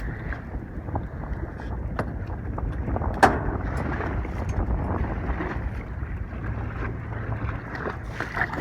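Wind buffeting the microphone over a steady low rumble on a boat, with scattered small clicks and one sharp knock about three seconds in.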